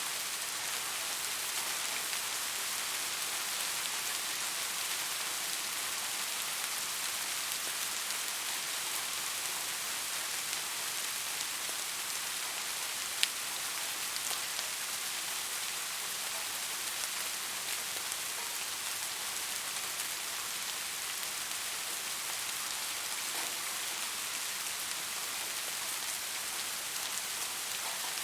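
Steady rain falling on a surface, an even hiss of many drops, with a single louder drop or tap about halfway through.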